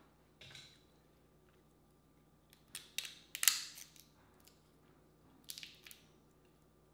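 Boiled crawfish shells cracking and crackling as they are twisted and pulled apart by hand. The loudest bout comes about three seconds in, and a shorter one comes near the end.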